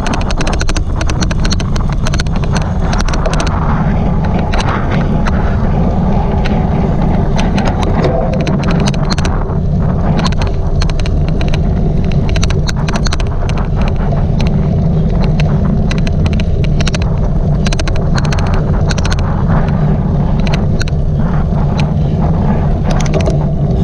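Cyclocross bike ridden at race pace: a steady, loud low rumble of tyres and wind on the microphone, overlaid with frequent irregular sharp clicks, the odd clicking noise that runs through the ride.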